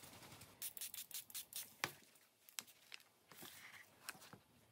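Faint dabbing and rubbing of a water brush pen on paper: a quick run of soft strokes about a second in, then a few scattered light taps.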